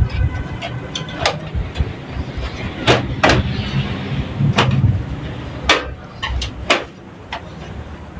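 A few sharp clicks and knocks, seconds apart, as a motherboard and its cables are handled and fitted into a metal PC case.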